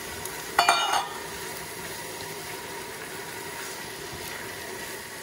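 Diced potatoes, leeks and onions sizzling gently in butter in an enamelled casserole as they are stirred. A short, ringing metallic clatter of a utensil against the pot comes about half a second in.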